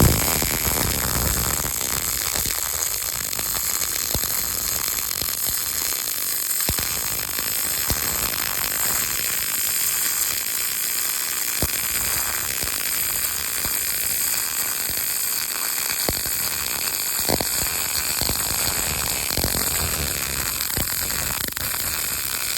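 MIG welding arc laying a horizontal fillet weld on 3 mm steel sheet at about 140–145 amps and 19.5 volts: a steady crackling sizzle with a few sharper pops.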